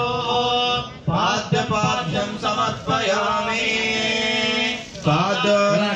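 Male voice chanting Sanskrit Vedic mantras in long held tones, breaking off briefly about a second in and again near the end.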